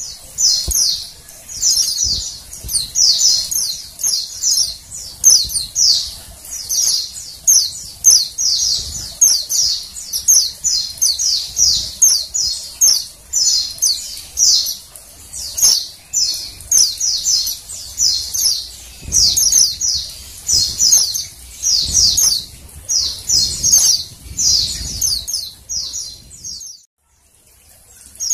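Female white-eyes (pleci) calling: a rapid run of short high-pitched chirp phrases, each a quick cluster of falling notes, repeating about once or twice a second. The calls break off briefly near the end, then start again.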